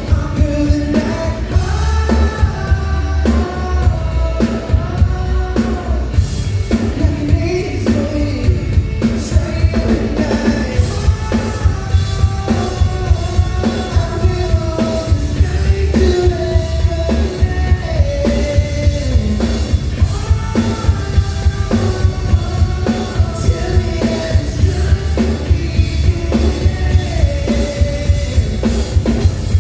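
A live band playing a rock-pop song: a lead vocal sings over a drum kit with a steady beat and a heavy bass.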